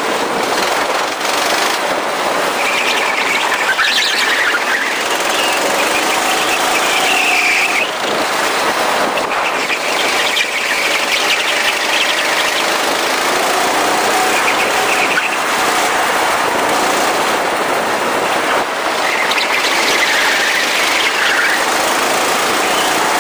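Go-karts running on a track: a steady engine drone with a high squeal that comes and goes several times, typical of kart tyres scrubbing through corners.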